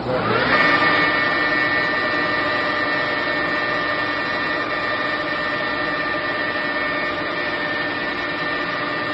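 Electric table drive of a 1980 Wotan horizontal boring mill starting up with a whine that rises over about half a second, then running steadily as the table moves.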